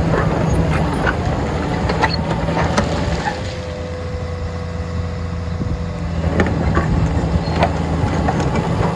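John Deere 950J crawler dozer's diesel engine running steadily under operation, with scattered sharp clanks and knocks from the machine. A steady whine joins for about two and a half seconds midway, while the engine sound eases slightly.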